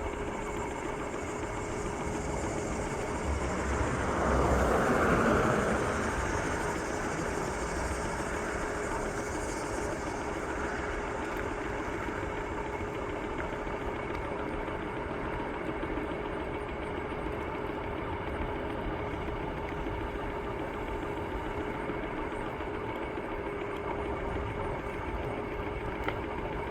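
Bird electric scooter riding along: a steady motor whine over road and wind noise, swelling louder for a couple of seconds about five seconds in. Near the end a short sharp knock as the wheel hits a rock.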